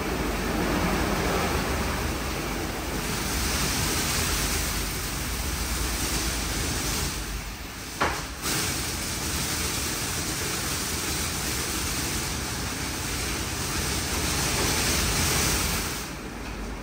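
WashTec SoftCare2Pro rollover car wash in its wash cycle: a steady rushing of water spray and washing, with one sharp click about eight seconds in.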